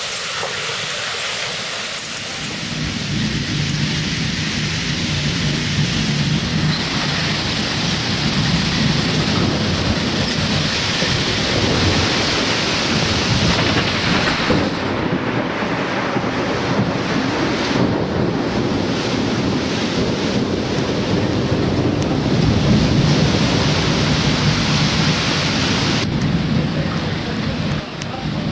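Torrential rain and storm wind of a Mediterranean gota fría (cold-drop) storm, a loud steady rush with a deep rumble underneath. The sound changes abruptly about halfway through and again near the end.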